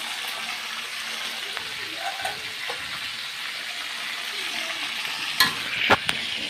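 Blended chili paste cooking in a wok over a gas flame, a steady hiss, the water in it still being cooked off before any oil is added. A few sharp knocks near the end.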